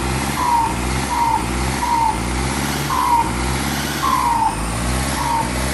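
Ford 6610 tractor's four-cylinder diesel engine running at idle with a steady low throb. Over it, a short falling chirp repeats about once a second.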